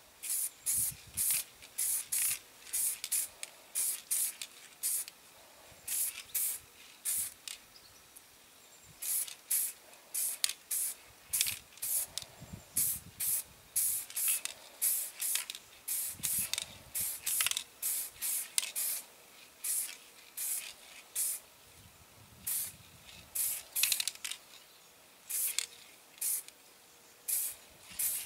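Primer being sprayed from an aerosol spray can in dozens of short hissing bursts, roughly two a second with brief irregular pauses, as a small die-cast car body is given light coats.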